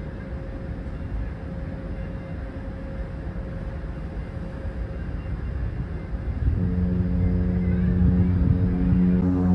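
A steady low rumble, then about six and a half seconds in a ship's horn starts: a deep, steady blast, louder than the rumble, that holds on.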